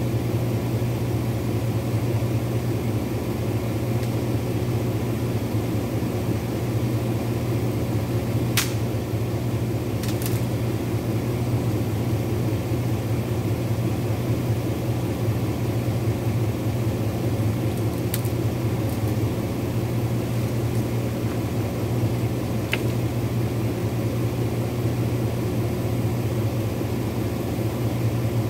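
A vehicle engine idling with a steady hum. A few short sharp clicks cut through it about a third of the way in and twice more later.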